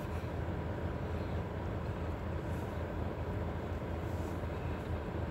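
Steady low rumble inside a parked car's cabin, with a couple of faint rustles from a sandwich wrapper being handled.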